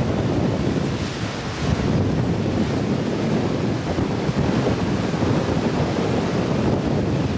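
Strong wind buffeting the microphone over the steady rush of a choppy, whitecapped sea, heard from the deck of a sailing catamaran under way.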